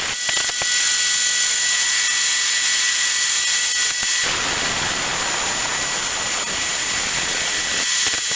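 Lathe rough-turning a heat-treated bronze tensile test bar: a steady hiss of the cut with a thin steady whine, turning fuller and lower about four seconds in.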